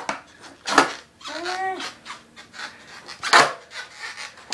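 Skateboard on a concrete floor: two sharp clacking scrapes, about a second in and again about three seconds in. Between them comes a short pitched sound that rises and then falls.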